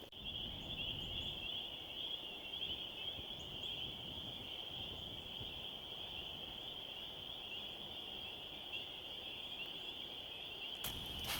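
A steady, dense, high-pitched chorus of frogs calling from a spring swamp over a faint wind rumble. Near the end come a couple of crackling footsteps in dry brush.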